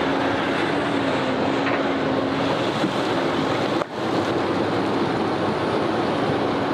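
Heavy diesel construction machinery running steadily with a constant engine hum, mixed with wind noise on the microphone, briefly dropping out a little over halfway through.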